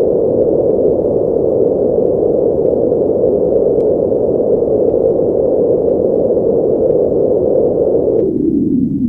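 A steady, loud, muffled rushing noise effect with no distinct hits or tones, dropping lower in pitch near the end.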